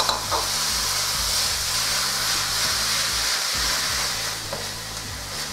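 Raw ground beef frying in hot oil with chopped onions in a nonstick pan: a steady sizzling hiss as a plastic spatula breaks up and stirs the meat, easing slightly near the end.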